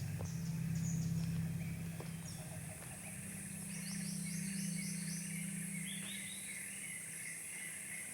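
Wild birds calling, with a quick run of about six falling chirps about four seconds in and warbling calls, over a steady high-pitched insect drone. A low hum fades out midway.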